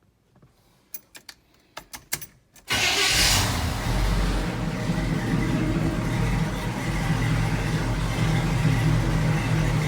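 1980 Chevrolet Silverado pickup starting: a run of sharp clicks, then about two and a half seconds in the engine catches suddenly and settles into a steady running rumble.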